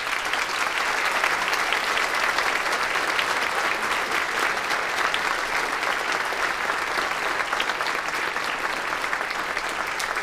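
Audience applauding steadily: many people clapping together in a sustained wash.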